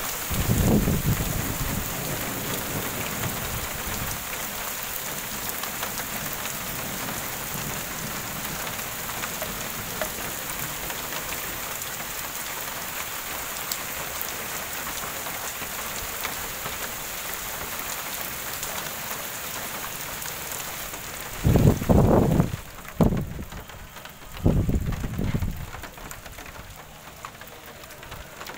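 Heavy rain falling steadily on a wet brick platform, with low rumbles near the start and a few short, heavy rumbles about three-quarters of the way through. The rain thins out toward the end.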